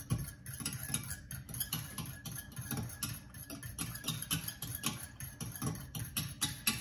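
Raw eggs being beaten in a glass measuring cup, the utensil clicking against the glass in a quick, even rhythm of about six strokes a second.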